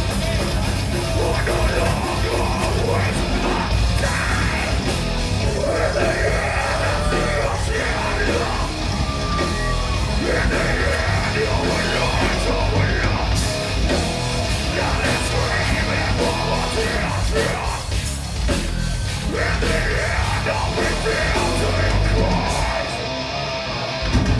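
Heavy metal band playing live: distorted electric guitar, bass and drums, with the singer yelling the vocals over them.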